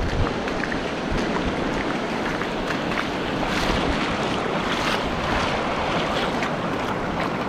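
Sea waves washing on the shore, a steady rushing noise, with wind buffeting the microphone and scattered small clicks.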